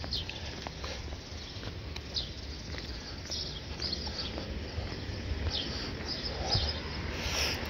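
Small birds chirping outdoors: short, falling chirps repeated irregularly, over a steady low rumble.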